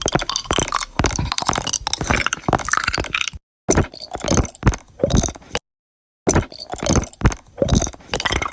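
A dense, edited string of crunching, squishing and breaking sound effects, cut off by two short gaps of total silence partway through.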